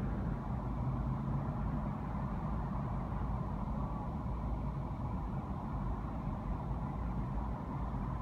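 Car engine idling, heard from inside the cabin as a steady low rumble.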